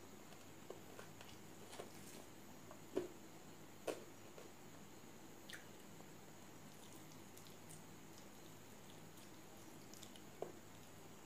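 Faint, sparse wet eating sounds of someone eating pork curry and rice by hand: a few quiet mouth smacks and clicks, the loudest two about three and four seconds in and another near the end.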